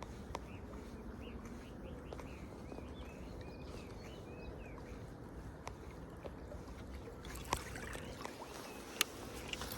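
Water lapping at a fishing kayak's hull, with a run of short high chirps in the first half and a few sharp clicks or knocks later on.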